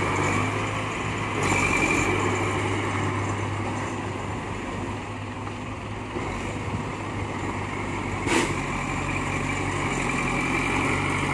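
Diesel engines of a small crawler bulldozer and a dump truck running steadily, with a single sharp knock about eight seconds in.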